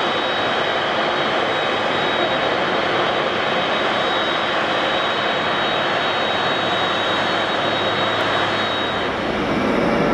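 Twin turbofan engines of an ANA Boeing 767 at taxi power: a steady jet roar with a high whine that fades out late on. Near the end this gives way to a louder, lower roar from a Boeing 737 at takeoff power.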